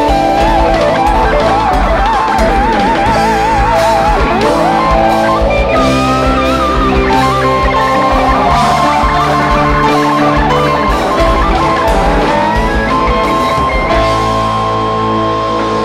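Live rock band with an electric guitar playing a lead solo, its sustained notes bent and shaken with wide vibrato over bass, keyboard and drums. Near the end the lead settles on one long held note.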